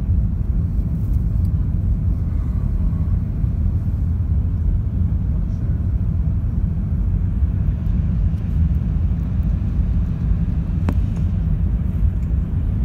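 Steady low rumble inside the cabin of an Airbus A380-800 climbing just after takeoff: its Rolls-Royce Trent 900 engines at takeoff thrust, together with airflow noise. A single brief click about eleven seconds in.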